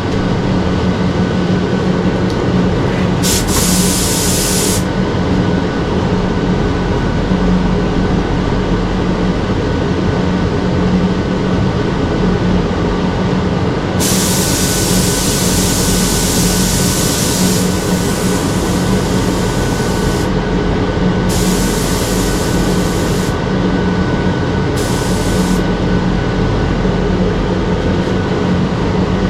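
Bursts of compressed air hissing: one about three seconds in, a long one of about four seconds midway, then two shorter ones, from the air nozzle or spray gun used to blow off and spray the parts for Cerakote. Under them a spray booth's ventilation fan hums steadily.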